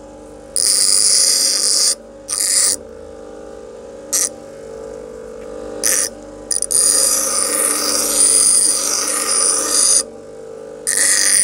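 Bench grinder motor humming steadily while a steel file is pressed against the wheel in repeated grinding passes: several short ones, then one long pass of about three and a half seconds, and another starting near the end. The file's edges are being chamfered and its teeth ground off.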